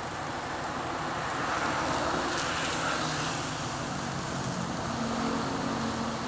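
Steady road traffic noise from cars passing on a city street, with a low steady engine hum underneath.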